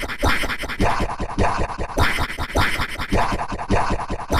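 Cartoon sound clip run through stacked audio effects and chopped into a rapid, harsh stutter of repeating fragments.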